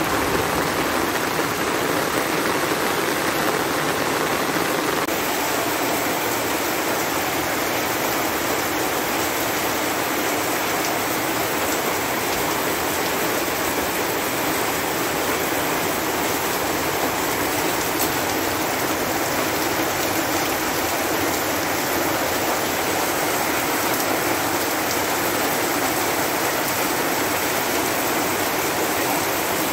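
Steady heavy rain falling: an even, unbroken hiss.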